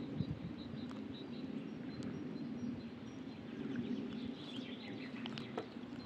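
Riverside ambience: a steady low rush from the fast-flowing Olt river, with faint bird chirps, a small flurry of them about four to five seconds in.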